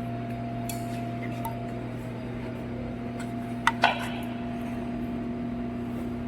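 Two quick sharp metallic clinks, metal striking metal with a brief ring, about three and a half seconds in, over a steady electrical hum.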